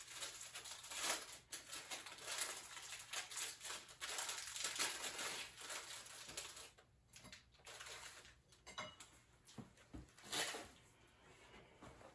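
A wrapper crinkling as it is handled: a dense run of small crackles for about the first six seconds, then only scattered crackles and a few clicks.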